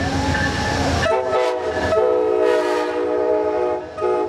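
Amtrak passenger train passing close, its locomotive air horn sounding a multi-note chord over the rumble of the train. The horn holds a long blast from about a second in, breaks off briefly near the end and sounds again.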